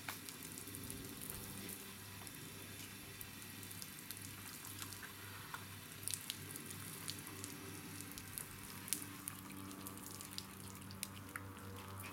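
Outdoor pool shower running, a steady spray of water hissing and pattering onto a person and the stone paving beneath.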